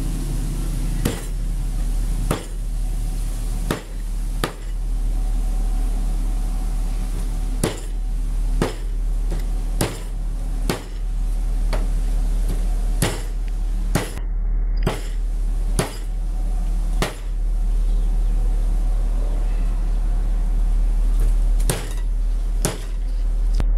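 Sharp knocks, often about a second apart but at uneven spacing, over a steady low rumble and hiss.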